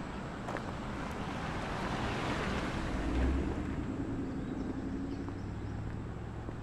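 A car passing by on the street, its tyre and engine noise swelling to a peak about three seconds in and then fading away.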